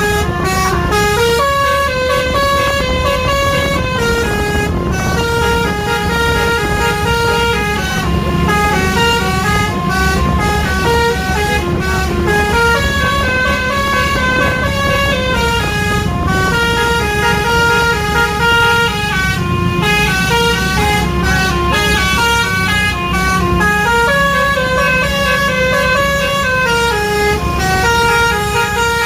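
Bus 'telolet' musical air horn (Basuri type) playing a long tune of stepped notes that climb and fall, repeating without a break, over the low rumble of the bus engine running.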